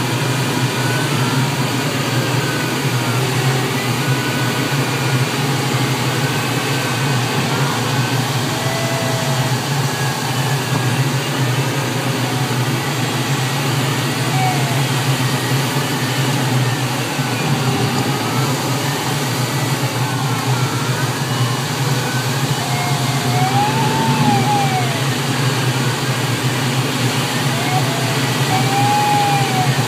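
Steady rush of air around a Grob sailplane's cockpit in gliding flight on final approach, with no engine. Faint tones wander up and down in pitch above the rush.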